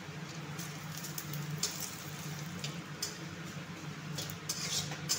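Dried jute leaves and dried red chilli frying in hot oil in a steel kadai, giving a soft, uneven sizzle and crackle, with a steel spatula stirring and scraping against the pan now and then. A steady low hum runs underneath.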